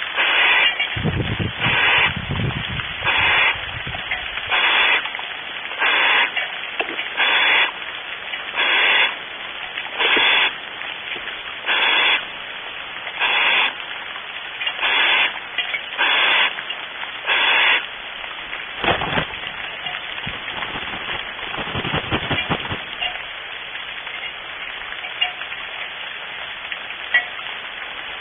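Barn owl giving a long series of rasping hisses, each under half a second, about one every second and a half, stopping about 18 seconds in: the snoring food-begging call. It runs over a steady background hiss, with low scuffling thumps of the owls moving in the wooden nest box near the start and again around 19 and 22 seconds.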